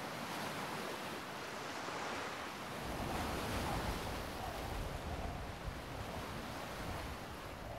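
Surf washing onto a rocky shore in a steady rush of waves. Wind starts buffeting the microphone with a low rumble about three seconds in.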